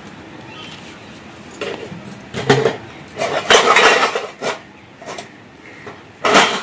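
Dishes and cutlery clinking and clattering: a run of sharp knocks and rattles starting about a second and a half in, busiest in the middle.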